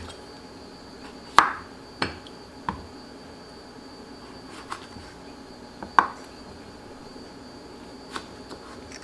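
Chef's knife cutting through a cucumber and striking a wooden cutting board: about six separate chops, unevenly spaced, the loudest about one and a half and six seconds in.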